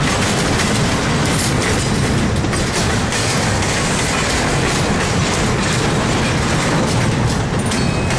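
Norfolk Southern double-stack intermodal train passing close by: the steel wheels of its container-laden well cars rolling over the rails in a loud, steady, continuous noise.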